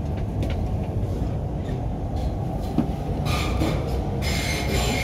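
Inside the carriage of an MTR Q-Train running through the tunnel: a steady low rumble of wheels on rail, with stretches of higher hissing noise in the second half.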